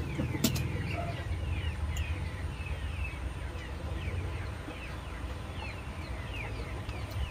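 Chickens calling: many short falling chirps, several a second, over a steady low hum, with one sharp clink about half a second in.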